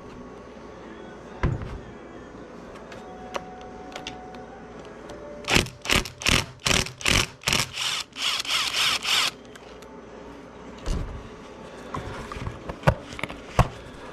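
Workshop handling noise while an engine case is being unbolted: a single knock, then a quick run of about eight short scraping strokes that runs into a longer scrape of about a second, then a few light knocks near the end.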